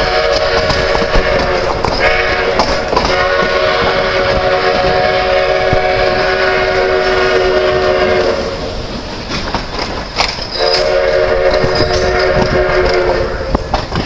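Steam locomotive whistle sounding a chord of several notes at once. One blast ends about two seconds in, a long blast of about five seconds follows, and a shorter blast of about three seconds comes near the end, all over a steady rushing noise.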